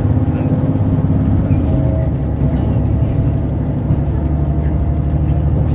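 Diesel railcar running at speed, heard from inside the carriage: a steady, loud low rumble of engine and running gear.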